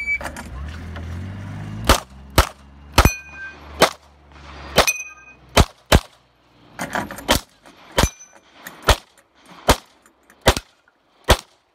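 A CZ Shadow 2 9mm pistol firing about fifteen shots in quick, uneven strings, some in pairs about half a second apart, during an IPSC stage. Several shots are followed by a short high ring, typical of hits on steel targets. The shot timer's start beep ends right at the start.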